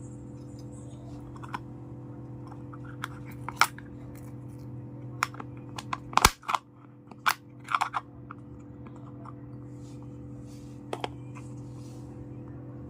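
Small hard pieces of a miniature toy kitchen set being handled: scattered clicks and taps, a quick cluster of them a little past the middle, over a steady low hum.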